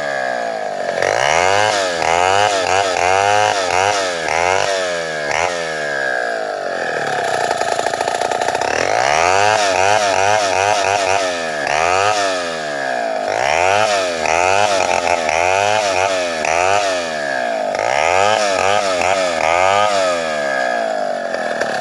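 Two-stroke chainsaw ripping a sengon log lengthwise. The engine's revs rise and fall over and over, with a longer stretch held at high revs in the middle.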